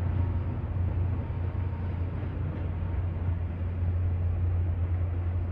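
Steady low drone of an MBTA commuter rail train approaching along the track, its diesel locomotive running under load.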